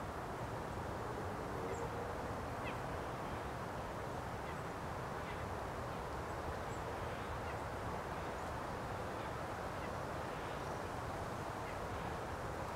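Steady outdoor background noise, a low even hiss and rumble, with faint short high bird calls now and then.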